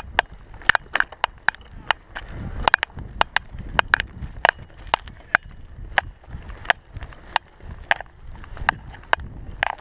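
Mountain bike ridden over a rough dirt trail: sharp, irregular clicks and knocks, about two or three a second, from the bike rattling over bumps, over a low rumble of tyres and wind.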